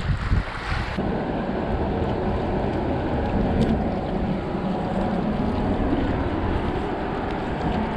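Wind buffeting the microphone in gusts for about a second, then a steady rushing of wind and small waves against the rocks.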